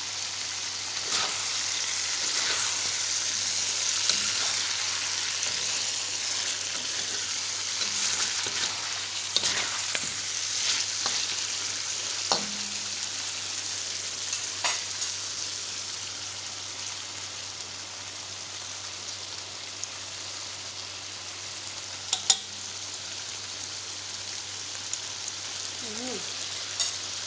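Chicken curry with onions and spices sizzling in a frying pan as it cooks down dry, with scattered clicks and scrapes of a spoon stirring against the pan. The sizzle eases a little in the second half.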